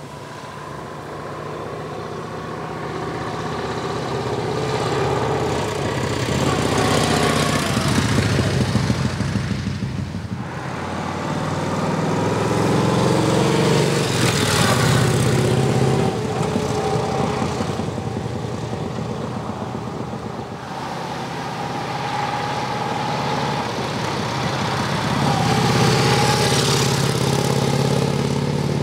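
Brough Superior SS80's V-twin engine and exhaust as the motorcycle is ridden past on the road, the engine note swelling as it comes close and fading as it goes away, three times over.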